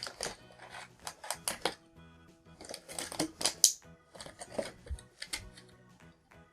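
Plastic toy packaging and small figure parts being handled, with irregular crinkles and clicks over steady background music.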